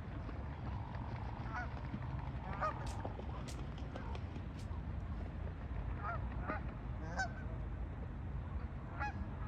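A flock of Canada geese honking, short calls now and then from several birds, over a steady low rumble.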